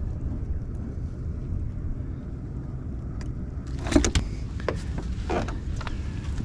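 Steady low rumble, with a run of sharp knocks and rattles starting about four seconds in, the loudest right at the start of the run.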